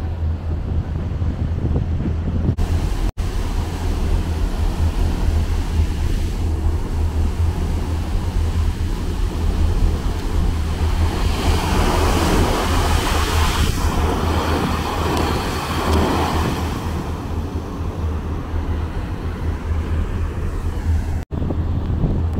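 Cruise boat's engines running with a steady low rumble, with wind buffeting the microphone and the rushing of the churned-up wake behind the boat. The rushing water grows louder and brighter for several seconds in the middle.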